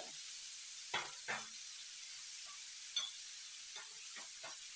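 Diced peppers, grated carrot and zucchini sizzling in oil in a frying pan with a steady hiss, while a silicone spatula stirs them. Several short scrapes of the spatula come about a second in and again near the end.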